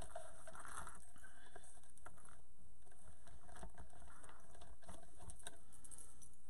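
Faint rustling and small ticks of ribbon being handled, twisted and tied off at the centre of a bow, over a steady low hum.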